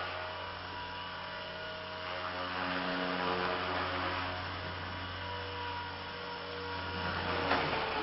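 Walkera 60B electric micro RC helicopter hovering, its motor and rotor whining steadily, the pitch shifting slightly with throttle. Near the end there is a sharp knock as it hits the floor, and the whine starts to drop away.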